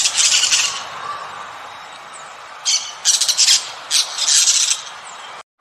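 A small green parrot giving harsh squawking calls: a burst of squawks at the start, then a quick run of calls from about halfway through.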